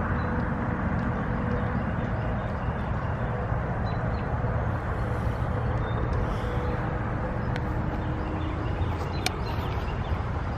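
Steady rumble of a car driving, road and engine noise, with a few faint clicks.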